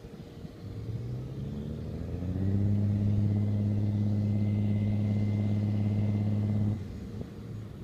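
Airport crash-fire-rescue truck's engine revving up in steps over about two seconds and holding a steady high speed to drive the pump feeding its roof water cannon, then dropping off abruptly near the end.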